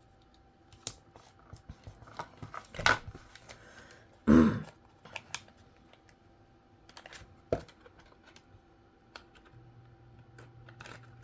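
Cardstock box and tape being handled and taped on a tabletop: scattered light clicks, taps and paper rustles, with one louder rip-like scrape about four seconds in.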